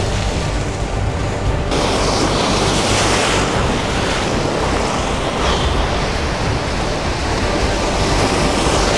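Surf breaking and washing over jetty rocks, with wind buffeting the microphone. The wash gets louder and hissier about two seconds in.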